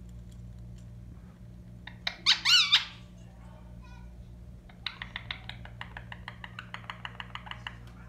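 Parrot calling: one loud, wavering screech about two seconds in, then a fast run of short, squeaky chirps, several a second, from about five seconds in until near the end.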